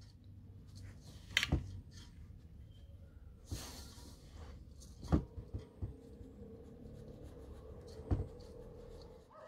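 Hands rubbing and crumbling a flour-and-butter mixture in an enamel basin: soft rustling and crunching, with three sharp knocks, about one and a half, five and eight seconds in. A faint steady hum joins from about five seconds in.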